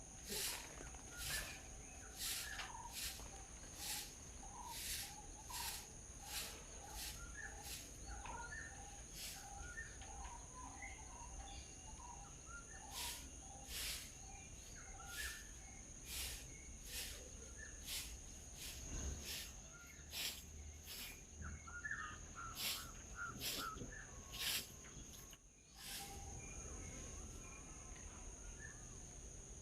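Small birds chirping and twittering over a steady high-pitched insect drone. A sharp, repeated chip sounds about once or twice a second and pauses for a few seconds about a quarter of the way in.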